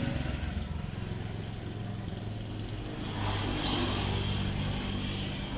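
A motor running steadily with a low hum, and a louder rushing noise that swells about three seconds in.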